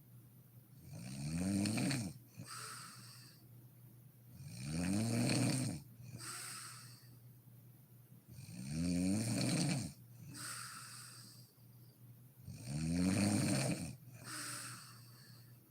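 A sleeping woman snoring in a steady rhythm: four loud snores about four seconds apart, each rising then falling in pitch, with a softer breathy exhale between them.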